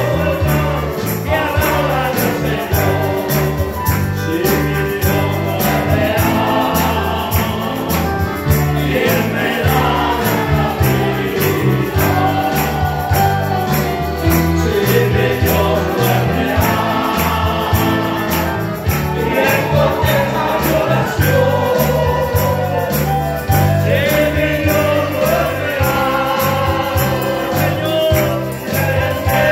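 Live Christian praise music: a group of voices singing a worship song over a band with a steady bass line and a regular drum beat.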